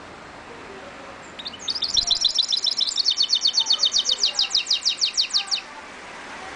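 Caged goldfinch × canary mule (mulet) singing: a burst of quick high notes that settles into a fast, even trill of about seven notes a second, stopping abruptly after about four seconds.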